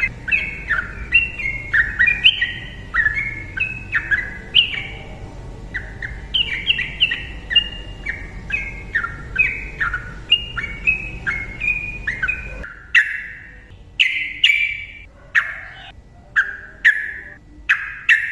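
Sooty-headed bulbul singing a long, fast run of short, bubbling notes that step up and down in pitch. About two-thirds of the way through, the background hum cuts off suddenly and the notes come in separate, more spaced phrases.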